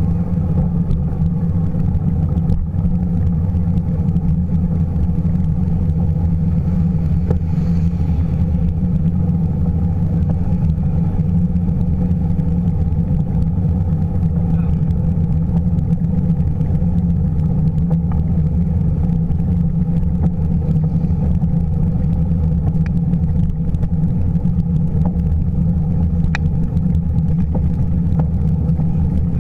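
Steady low rumble of wind and road vibration on a bicycle-mounted camera while riding, with city traffic mixed in.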